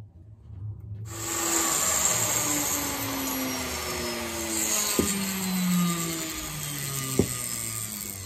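A handheld power tool starts about a second in and runs continuously, its pitch repeatedly falling as it cuts, while a hole is enlarged for the replacement carburetor's mounting. Two sharp ticks come about halfway through and near the end.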